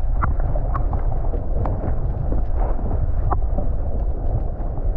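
Water moving against an action camera in the sea: a heavy, muffled rumble with scattered sharp clicks and pops.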